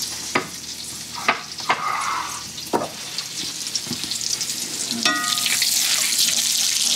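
Butter melting and sizzling in a hot stainless-steel skillet over meatball drippings, with scattered sharp pops. About five seconds in there is a brief squeal, and the sizzle grows louder as a spatula starts stirring the pan.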